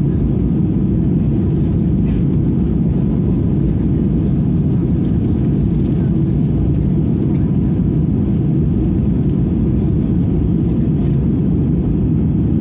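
Airliner cabin noise in flight: a steady, loud low rumble of engines and rushing air that does not change.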